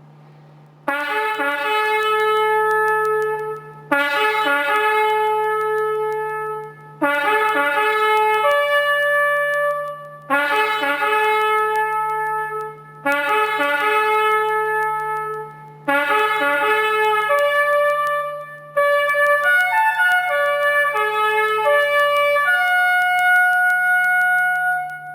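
Solo trumpet playing a slow bugle-style call in about eight phrases of held notes, each lasting a couple of seconds with short breaks between them. A steady low hum runs underneath.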